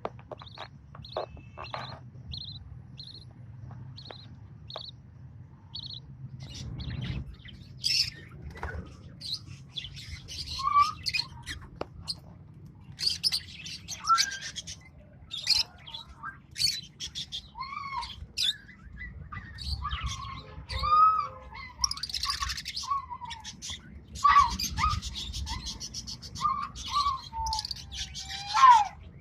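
Lovebirds chirping: at first a run of short, evenly spaced high chirps, about two a second, then after several seconds a busier stretch of overlapping chirps and calls.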